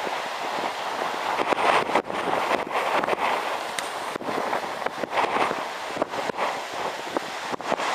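Wind blowing across the camcorder microphone: a steady rushing noise that swells and dips unevenly in gusts, with brief dropouts.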